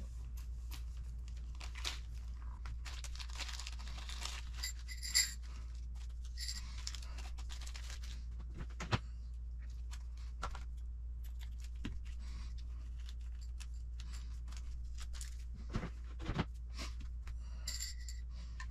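Clear plastic kit-parts bag crinkling as it is cut open with scissors and handled, with scattered sharp clicks of small plastic parts. A steady low hum runs underneath.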